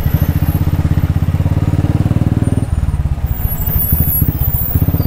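Motorcycle engine running at low revs in slow traffic, with a steady, even, rapid beat; its note changes slightly about halfway through.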